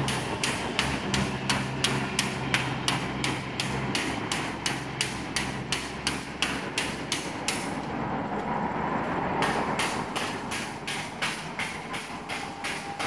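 Construction-site knocking: rapid, regular hard strikes, about three a second, with a break of about a second and a half near the middle. A low steady hum fades out in the first few seconds.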